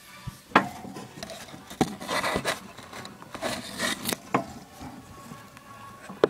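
A small pet rodent gnawing on a nut: a few sharp cracks, with two longer stretches of rasping and scraping between them.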